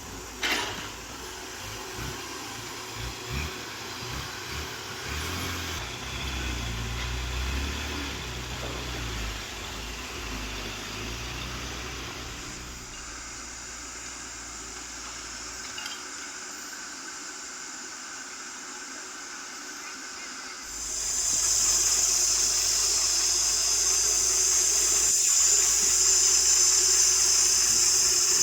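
Heavy machinery engine running with a low, uneven rumble through the first half. About two-thirds of the way in, a louder steady hiss sets in and holds to the end.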